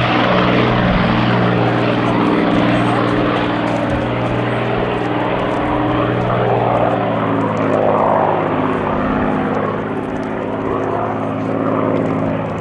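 P-51 Mustang's V-12 piston engine running, with the propeller giving a steady, deep multi-toned drone that shifts slightly in pitch. The sound stops suddenly near the end.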